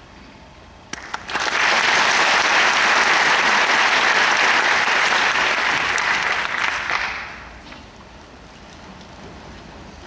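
Audience applauding in a concert hall: a few single claps about a second in, then full applause for about six seconds that dies away.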